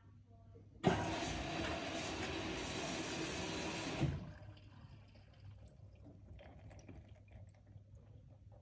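LG front-loading washing machine taking in water at the start of a cottons cycle. About a second in, the inlet valve opens and water rushes into the drum for about three seconds, then shuts off abruptly with a clunk. Faint water sounds in the drum follow.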